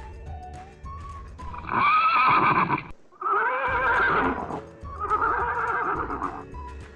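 Horse whinnying three times, each a long, quavering call, over quiet background music.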